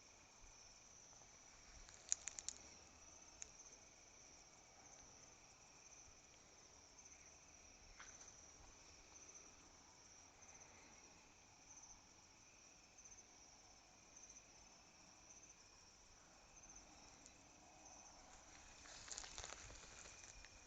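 Faint, steady chirring of night insects such as crickets, with a few soft clicks about two seconds in and a light rustle near the end.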